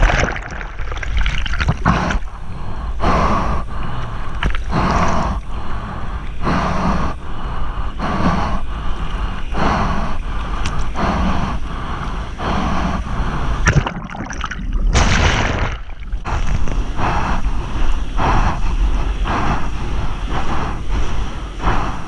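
Seawater splashing and sloshing around a surfboard being paddled out through broken waves, with a surge of splash about once a second from the arm strokes and heavy water and wind rumble on the microphone. The sound dulls briefly twice about two-thirds of the way through.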